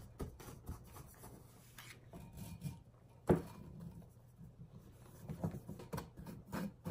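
A spoon scooping powdered sugar and scraping it through a fine wire-mesh sieve: soft rubbing and light taps, with one sharper knock about three seconds in.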